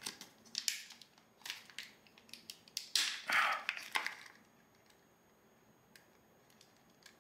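Crinkling and rustling of a small clear plastic zip-lock bag as hands work it open to get at the battery wraps inside: a string of short rustles that stops about four seconds in.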